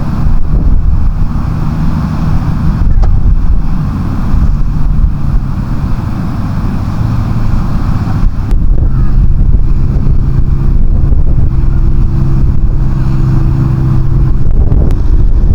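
A vehicle engine running steadily under heavy wind noise on the microphone, as when riding along; the engine hum holds an even pitch.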